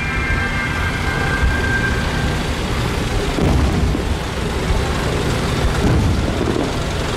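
Fireworks shells bursting in quick succession, a continuous low rumble of booms and echoes.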